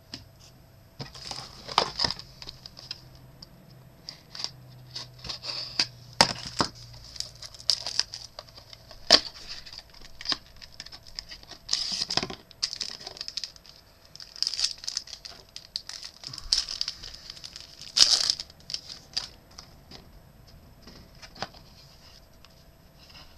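Pack of Topps UFC Knockout trading cards being torn open and the cards handled: irregular tearing and crinkling of the wrapper with sharp clicks and snaps of card stock.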